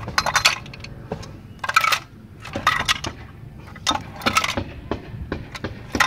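Loose metal tools rattling and clinking inside a removed Kawasaki Ninja 300 stock muffler as it is tipped and shaken, in several irregular bursts.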